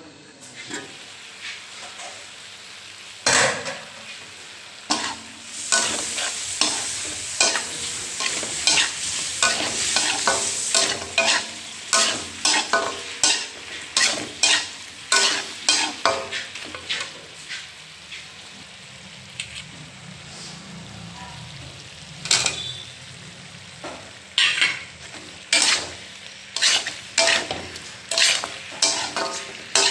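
Chicken and potato pieces sizzling in oil in a kadai while a metal spatula stirs them, scraping and knocking against the pan about once or twice a second. The strokes ease off for a few seconds around the middle, leaving only the sizzle.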